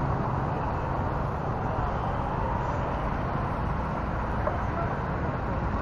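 Steady rumble of a Tamiya radio-controlled Toyota Land Cruiser 40 rolling along pavement. It is picked up by a camera mounted on the car itself, with street traffic noise mixed in.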